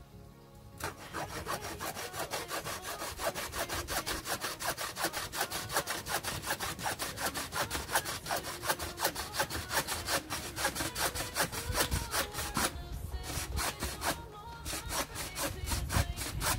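Bow saw cutting through a wooden lath by hand in quick, regular back-and-forth strokes. The strokes stop for about two seconds near the end, then start again.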